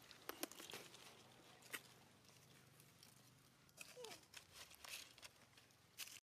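Faint crinkling and crackling of dry leaves and a plastic snack wrapper as baby and mother macaques move over them, in scattered ticks, with a short falling squeak about four seconds in.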